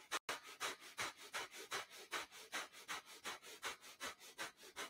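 A man doing breath of fire: rapid, forceful rhythmic breathing through the nose, a quick even series of short puffs with stronger exhales alternating with lighter inhales.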